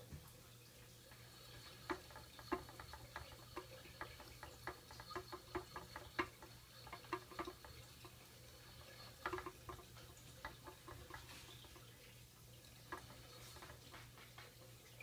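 Hamsters scrambling over a clear plastic exercise wheel: faint, irregular clicks and taps of claws and the jostled wheel, busiest over the first two-thirds and sparse near the end, over a steady low hum.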